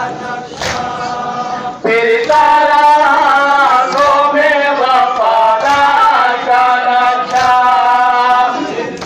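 Men's voices chanting a Muharram mourning lament (nauha) together: a sung line of long held notes that swells loud about two seconds in, after a quieter stretch of mixed crowd voices.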